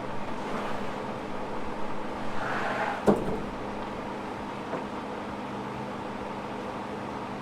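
An engine runs steadily at idle, with a single sharp knock about three seconds in.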